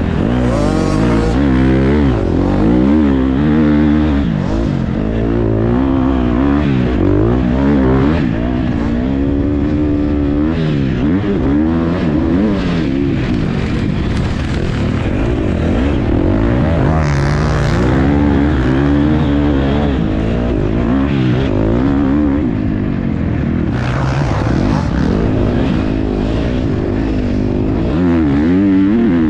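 Motocross bike engine heard close-up from onboard, revving up and dropping back over and over as it is ridden hard around a dirt track and shifted through the gears.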